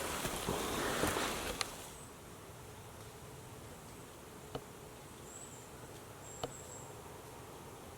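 Rustling and handling noise for about the first two seconds, then quiet outdoor ambience with faint, short, high-pitched insect-like chirps and two soft single clicks.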